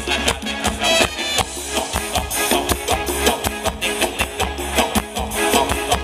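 Live Thai ramwong dance band playing an upbeat number, with the drum kit keeping a steady beat under bass, electric guitar and horns.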